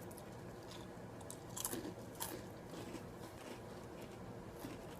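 Faint chewing of crunchy Peeps cereal, with a few sharp crunches near the middle.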